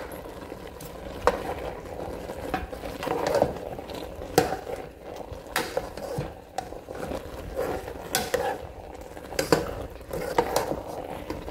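A spoon stirring thick okra soup in a metal pot, with irregular knocks and scrapes of the spoon against the pot.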